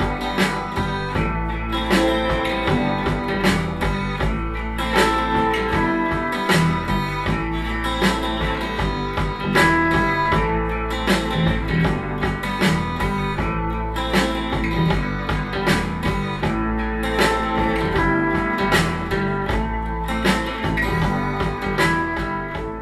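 Southern folk music with guitar played back through a pair of Sharp CP-C411H bookshelf speakers and picked up by a microphone in the room; the track fades out just before the end.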